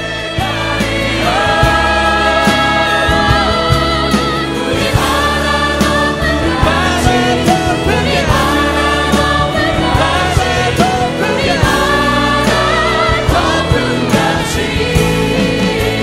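Background music: a choir singing a Christian song with held notes over steady instrumental accompaniment.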